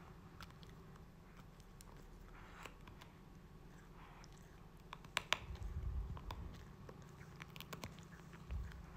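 Caracal gnawing and chewing on a person's fingers: faint, scattered wet clicks and small crunches from its teeth and mouth, with a burst of sharper clicks and a low rumble about five seconds in.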